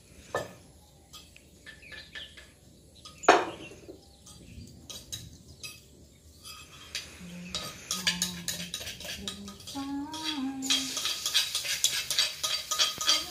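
Knocks and clinks of cookware and utensils around a wok on a charcoal stove, with one loud knock about three seconds in. Near the end, mushrooms start sizzling and crackling in the hot wok.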